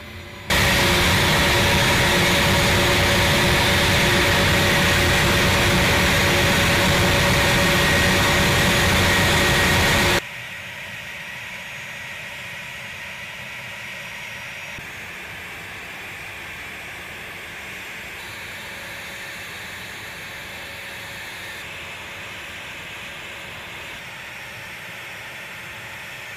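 A-10 Thunderbolt II's TF34 turbofan engines running on the ground: loud steady jet noise with a high whine, starting abruptly about half a second in and cutting off about ten seconds in. After that, quieter steady jet engine noise.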